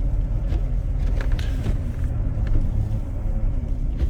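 Motor vehicle running, heard from inside the cab: a steady low rumble with a faint tone wavering up and down above it.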